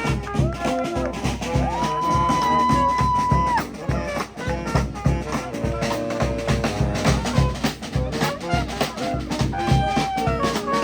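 Brass band playing: horns over drums keeping a steady beat, with one long held horn note from about two seconds in.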